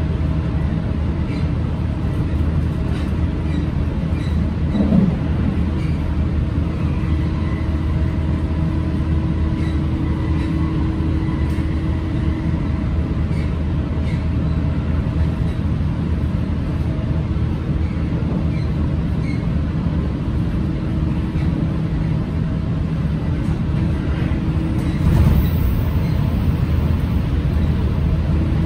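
Interior running noise of a JR Central 313 series electric train at speed: a steady rumble of wheels on rail with a few faint steady tones over it. It grows briefly louder near the end.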